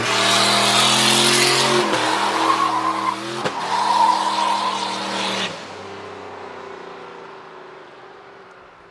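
Turbocharged 5.4-litre V8 of a 2003 Ford F-150 held at high revs during a burnout, with the rear tyres spinning and squealing. The noise drops abruptly about five and a half seconds in, leaving a quieter engine sound that fades away.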